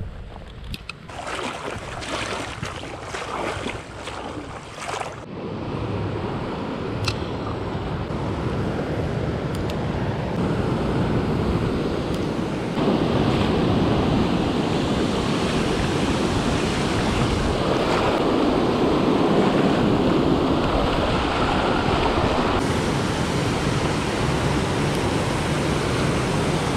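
Water pouring over a river spillway and rushing through the rocks below, a steady rush that grows louder and steps up about halfway through. A few short irregular rustles and knocks come in the first few seconds.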